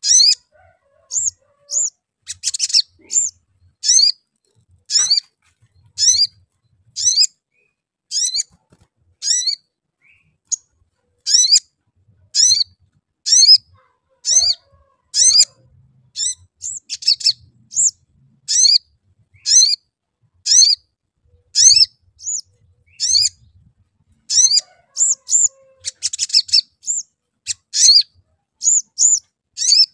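Male olive-backed sunbird (sogon) calling: sharp, high chirps about once a second, with a couple of quicker chattering runs.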